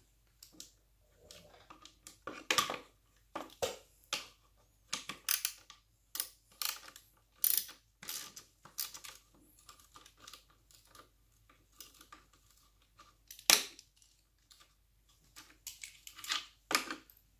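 Wrench clicking and clinking on a 10 mm nylon-insert lock nut and the cart's wheel bracket as the nut is worked off a turn at a time: irregular sharp metal clicks, one every half second to a second, with one louder clink about three-quarters of the way through.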